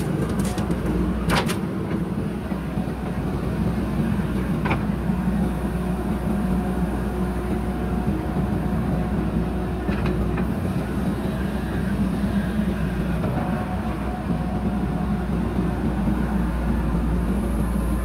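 JCB 3DX backhoe loader's diesel engine running steadily under load while the backhoe digs a trench and dumps soil into a trailer, with a few sharp knocks about a second in, near five seconds and near ten seconds.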